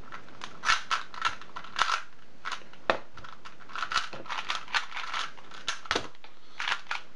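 Two 2x2 speed cubes, a YJ YuPo and a MoYu LingPo, being turned fast during a timed speedsolve: quick bursts of plastic clicking and rasping turns.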